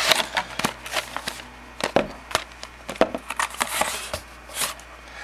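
Cardboard trading-card box and its contents being handled: a string of irregular clicks, taps and light rustles.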